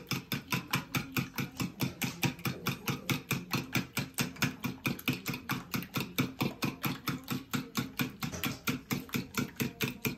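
Spoon beating eggs in a plastic bowl: a rapid, even rhythm of taps against the bowl.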